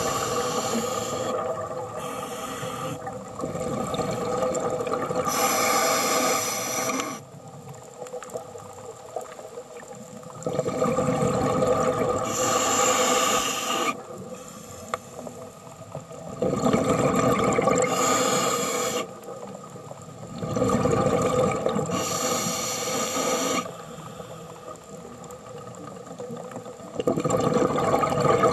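Scuba diver breathing through a regulator underwater: bursts of rushing, bubbling exhaust about every four to six seconds, with quieter stretches between, over a steady hum of several held tones.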